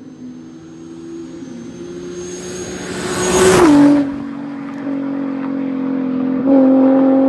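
Nissan 350Z's VQ35 V6 driven fast toward and past the listener, growing louder to a peak about three and a half seconds in, where the exhaust note drops in pitch as the car goes by. It then holds a steady note as it pulls away, louder again for about a second near the end.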